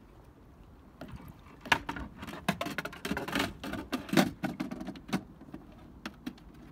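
Irregular hard plastic and metal clunks and rattles as the pedal drive unit of a Galaxy Supernova kayak is handled and seated in its well in the hull. They are densest from about one to five seconds in, then thin out to a few light knocks.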